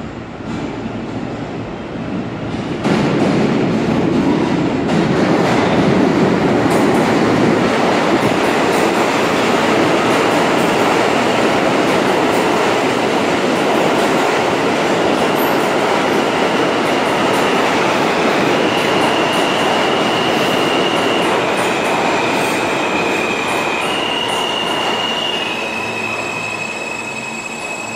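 Subway trains in an underground station: a train runs past with a loud, steady rumble and clatter that jumps up about three seconds in. In the second half, steady high whining tones come in and step between pitches as a train moves.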